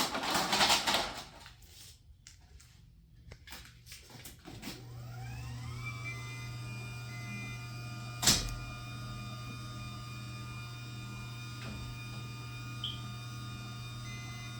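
A few knocks, then an electric garage door opener motor starts with a rising whine and runs steadily with a hum, driving the door on its newly installed torsion springs. There is a single sharp click about eight seconds in.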